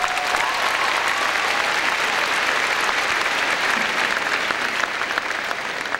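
Large audience applauding, a dense steady clapping that swells in at the start and thins out near the end.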